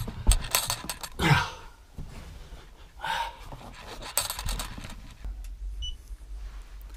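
Footsteps crunching and scraping on loose stone rubble in a tunnel: a few separate crunches, the loudest in the first two seconds.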